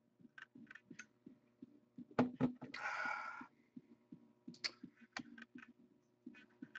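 Trading cards and their packaging being handled on a desk: scattered light clicks and soft thumps, with a short scraping rustle about three seconds in, over a faint steady hum.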